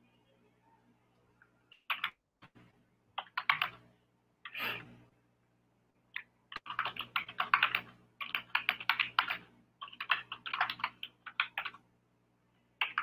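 Typing on a computer keyboard: several quick bursts of key clicks with short pauses between them, over a faint low steady hum.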